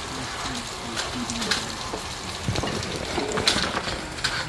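Steady rain falling, with sharp clicks of single drops hitting close by.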